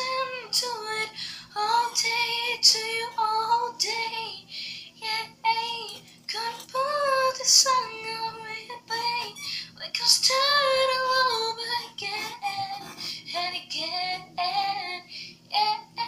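A child singing a song in a high voice, phrase after phrase with short breaks, over a faint steady low hum.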